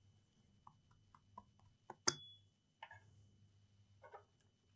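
Faint workbench handling noises: a few small clicks and knocks as tools are picked up and set down, with one sharper metallic clink that rings briefly about two seconds in.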